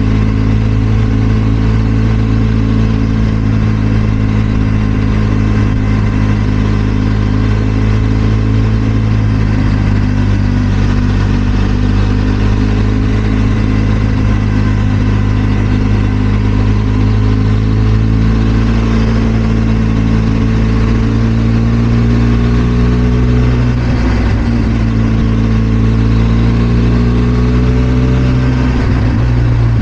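Benelli TRK 502 X's 500 cc parallel-twin engine running with a steady note that shifts slightly in pitch a few times, with a brief dip about two-thirds of the way through.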